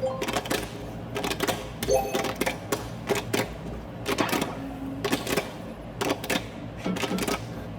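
Hands clapping and slapping thighs in quick, uneven strokes, the beat of a clapping rhythm game.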